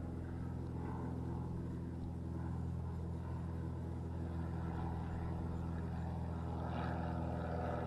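A steady, low engine hum that holds one even pitch throughout.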